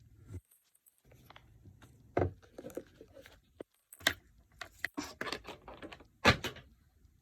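Handling noise from a woodworking chisel being picked up and turned over: scattered clicks, light knocks and rustling, with the loudest knock about six seconds in.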